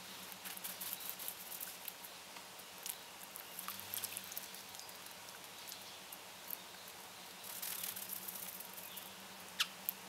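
Finches fluttering and tapping on the rim of a bird bath as more of them land: bursts of quick soft taps and wing flutters, with a sharp click near the end. A faint low steady hum runs underneath.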